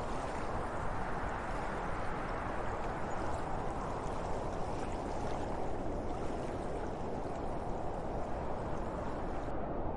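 Wind blowing steadily, a continuous even rush; its higher hiss falls away abruptly just before the end.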